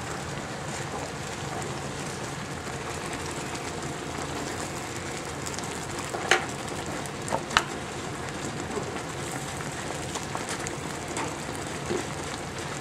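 Pork chops, potatoes and onions bubbling in gravy in a skillet on high heat: a steady crackling hiss of boiling, with a few sharp pops around the middle.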